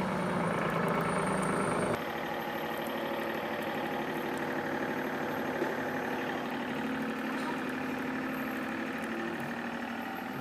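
Hydraulic press's power pack, its electric motor and pump running steadily with a hum; the tone of the hum changes abruptly about two seconds in.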